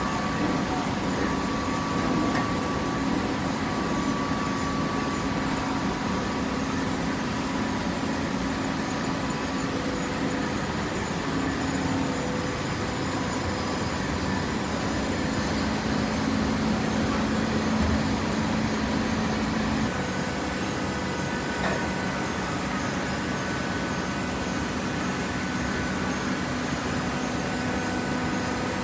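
Hydraulic baler's motor and pump running: a steady mechanical hum whose tone changes a few times.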